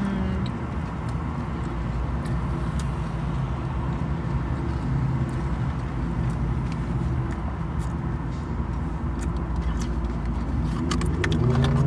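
Steady low hum of a car, heard from inside its cabin, with a run of small clicks near the end.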